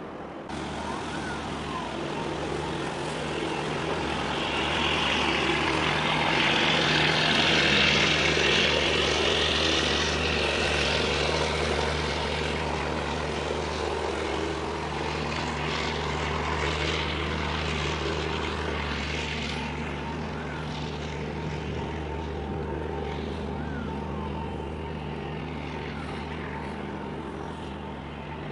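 The 11,714 TEU container ship YM TOGETHER passing close under way: a steady low hum from its engine and a broad rushing noise that swells to its loudest about eight seconds in, then slowly fades as the hull goes by.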